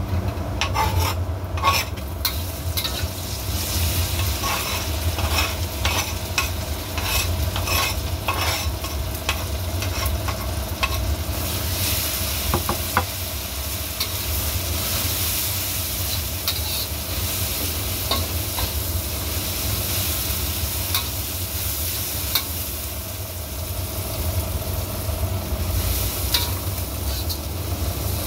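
Ground spice paste and shallots sizzling as they fry in hot oil in a wok, stirred and scraped with a metal spatula. The spatula clicks and scrapes on the wok, most busily in the first few seconds as the paste goes in.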